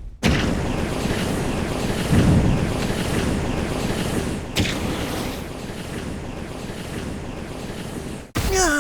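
Steady rushing wind-like noise that fades slowly, with a couple of brief sharp cracks in it. Near the end it cuts off, and a voice begins a gliding sigh or groan.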